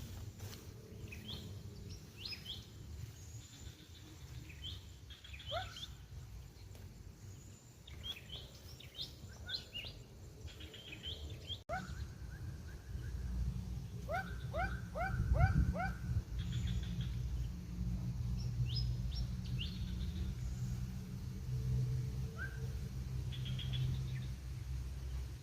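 Birds chirping in short, rising calls, some in quick runs of four or five, over a low steady rumble.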